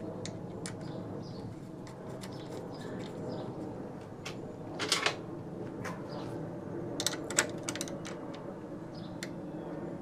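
Scattered small clicks and rattles of hands fitting a washer and nut onto the metal brake-cable bracket on a lawn mower handle, with a louder clatter about five seconds in and a quick run of clicks around seven seconds.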